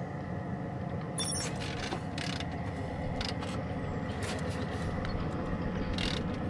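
Traxxas TRX-4 RC crawler's stock electric motor and geared drivetrain whining steadily as it crawls slowly, with scattered sharp clicks and cracks as the tyres roll over twigs and bark.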